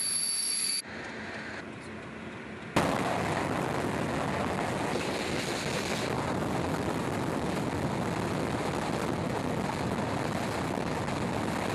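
Train running past close by: a loud, steady rush of wheels on rails and air that cuts in abruptly about three seconds in, after a brief high steady tone and a quieter stretch.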